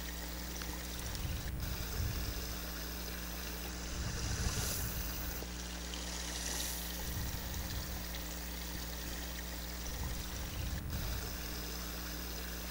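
Shallow running water trickling over stones and gravel: a steady watery hiss, with a few soft low bumps now and then.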